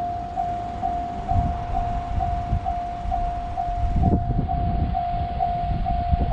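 Japanese railroad crossing warning bell ringing: a single electronic tone pulsing about twice a second, with an irregular low rumble underneath that swells about a second in and again near the middle.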